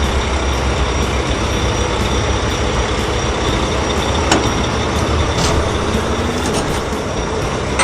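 Heavy construction-vehicle engine sound effect, a steady low rumble, with a few short clicks partway through.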